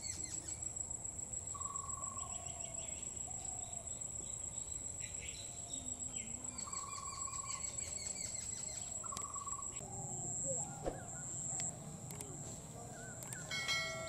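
Steady high-pitched, pulsing insect trill, with scattered short chirps and brief whistled notes from small birds.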